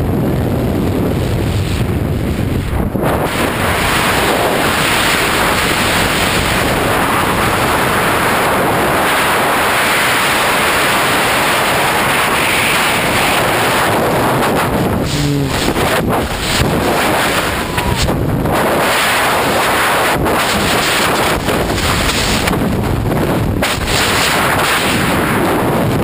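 Loud, steady wind rushing and buffeting over a skydiver's camera microphone, typical of freefall.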